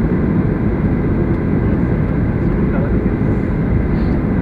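Steady cabin noise inside a Boeing 737-800 on approach: the deep rumble of its CFM56 engines mixed with the rush of air along the fuselage, unchanging in level.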